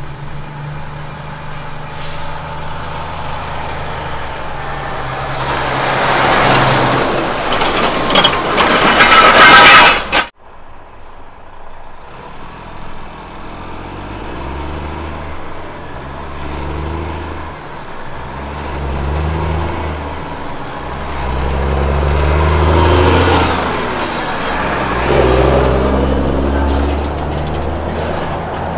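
Heavy trucks passing close by. First a truck's diesel engine and tyre noise swell to a loud rush as it goes by, cut off abruptly about ten seconds in. Then a Kenworth road train hauling a flat-deck trailer pulls away, its diesel engine revving up and dropping back through several gear changes, with a high whistle rising and falling along with the revs.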